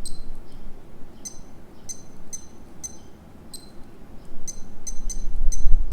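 Casio TRI-10W digital watch beeping: about ten short, high beeps at uneven intervals as its buttons are pressed. A low handling rumble sits under them near the start and end.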